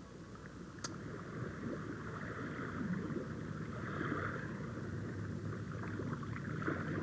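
Steady rushing outdoor ambience, with a single sharp click about a second in.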